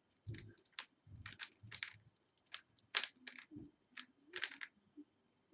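3x3 Rubik's cube being turned by hand: a run of irregular plastic clicks and clacks, with a few soft low knocks.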